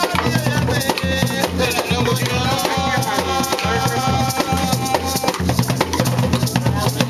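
Garifuna drumming: hand drums beating a fast, dense rhythm with shakers rattling along. A held melodic note sounds over the drums from about two to five seconds in.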